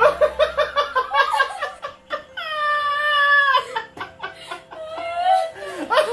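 A man and a woman laughing hard in rapid bursts, breaking into a long, high-pitched squeal of laughter a couple of seconds in and a shorter wavering one after it, then more bursts of laughter.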